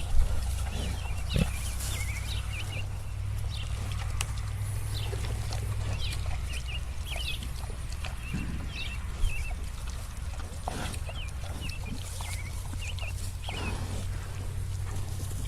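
Pigs on a farm, with many short high chirps scattered throughout and a steady low hum underneath.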